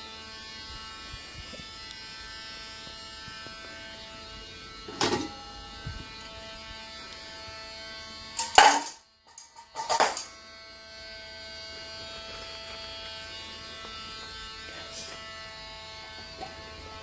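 Cordless Dremel rotary tool running steadily with an even motor buzz. A few short loud knocks sound over it, and the sound drops out briefly about nine seconds in.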